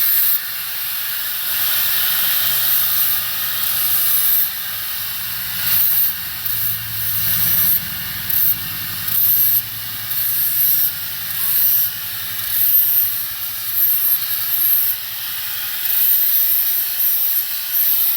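Angle grinder fitted with a Tiger flap disc sanding road rash off the edge of a wheel rim: a loud, hissing grind over the motor's hum. The grinding surges and dips every second or so as the disc is pressed on and eased off the metal.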